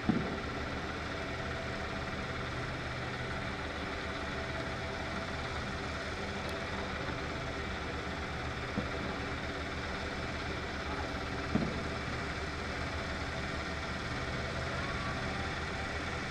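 A steady mechanical hum, with three short knocks.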